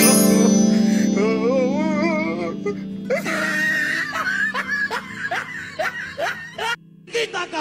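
Background music with a wavering melody, followed by a run of short squeaky notes at about two a second.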